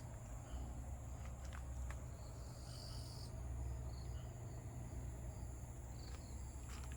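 Insects trilling steadily in a high, even tone, over a steady low hum, with a few faint ticks.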